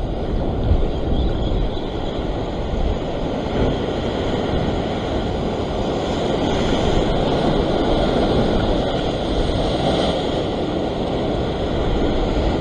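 Sea surf washing and foaming, with wind buffeting the microphone: a steady rushing noise with no break.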